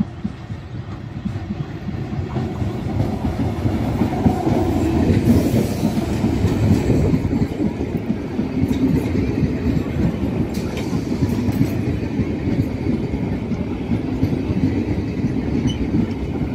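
Electric multiple unit (EMU) local train approaching and running past alongside the platform. It grows louder over the first few seconds, then holds at a steady rumble, with the clickety-clack of wheels over rail joints and a few sharp clicks.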